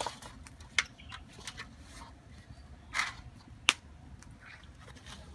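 A few light clicks and knocks from bamboo fish skewers being handled in an aluminium bowl, the sharpest about three and a half seconds in, over a low steady background.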